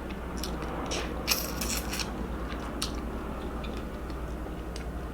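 A person eating close to the microphone: chewing with scattered wet clicks and smacks, busiest about a second and a half in.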